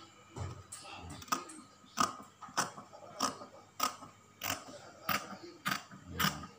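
Tailor's scissors cutting through fabric in a steady run of snips, about one every half second or so, starting about a second in.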